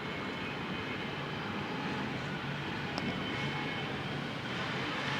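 Steady city background noise: an even rumble and hiss with a low hum, like distant traffic, and a small click about three seconds in. No thunder is heard.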